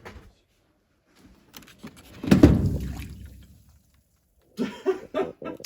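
A sudden rush of water spilling and splashing out of something, loud at first and dying away over about a second and a half.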